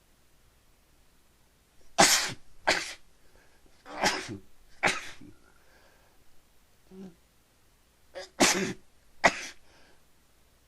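A person sneezing over and over in a pepper-induced sneezing fit: six sharp sneezes in three pairs, with short breaths between them.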